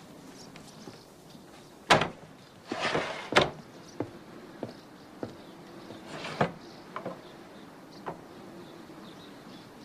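Sharp wooden knocks and clatter from a guillotine and its scaffold, with a short scraping slide among them. The loudest knocks come about two seconds in, at about three and a half seconds and at about six and a half seconds, with smaller taps in between.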